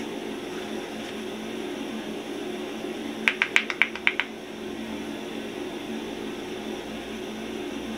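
Steady low room hum, with a quick run of about seven light clicks or taps about three seconds in, lasting about a second.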